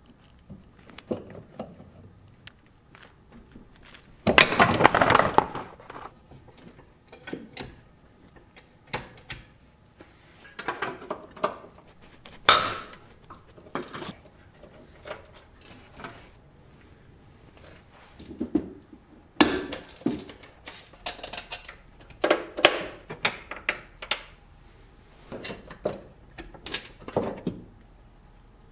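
Hand tools and metal parts clinking and clanking in short, irregular knocks and rattles, with a longer, louder rattle about four seconds in.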